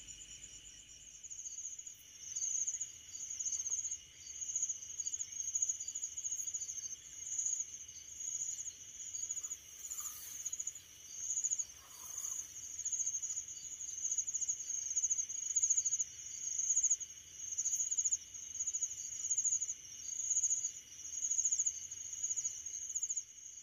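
Chorus of night insects: a high trill that swells and fades about once a second, over a steady lower whine.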